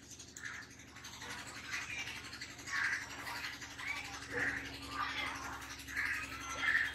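Marker pen squeaking across a whiteboard in short strokes, about one a second, as letters are written.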